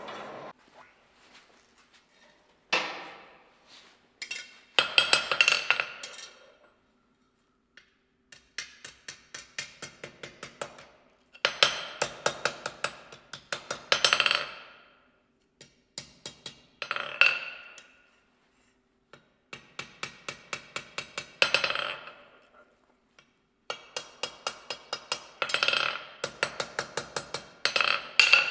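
Blacksmith's hand hammer striking red-hot iron on a steel anvil in quick runs of several blows a second, with pauses of a second or two between runs. Each blow rings with a clear metallic tone.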